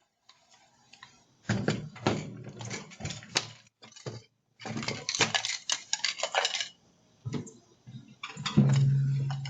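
Bursts of rattling and clinking from hard objects being handled, with sharp clicks. A short, steady low hum comes in near the end.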